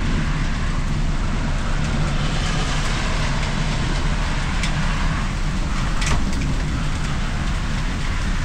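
Steady rain falling, with a low rumble beneath it and a couple of louder single drops striking close by.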